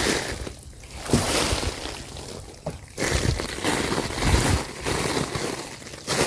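Loose soil spilling and scraping out of a tipped-over plastic mineral lick tub onto a tarp, in several separate rushes.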